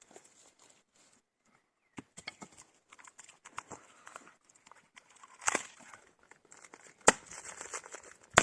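Scattered rustling and crackling with light knocks, then two sharp knocks about seven and eight and a half seconds in.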